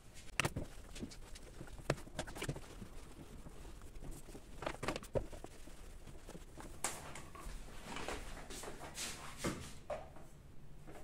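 Wooden picture frames being handled on a wooden table: a scattering of light knocks and clicks as they are picked up and set down, then a cloth rubbing back and forth over a frame's glass in the second half.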